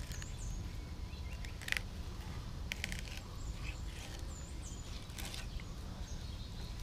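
A fillet knife slicing along a small channel catfish on a wooden cutting board, with a few soft clicks and scrapes as the blade works. A steady low outdoor rumble and a few faint bird chirps run underneath.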